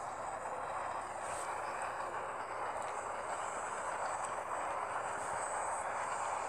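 Red-and-white electric commuter train approaching along the tracks: a steady rushing noise that grows gradually louder.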